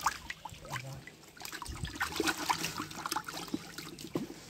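Small live fish splashing in a bucket of water as fish picked out of a wet cast net are dropped in: irregular little splashes and drips, with a short lull about a second in.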